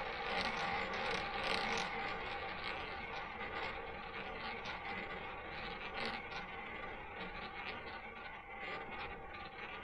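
Ball rolling around the track of a spinning double-zero roulette wheel, a steady whirring that slowly fades as the ball loses speed, with a few faint ticks.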